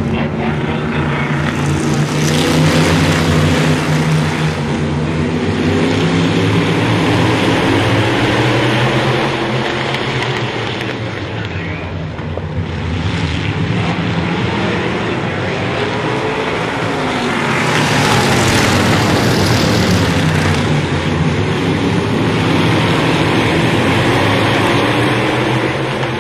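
A pack of modified race cars running hard on a short oval, many engines at once rising and falling in pitch as the cars pass. It swells loudest a couple of seconds in, again about eighteen seconds in, and once more near the end.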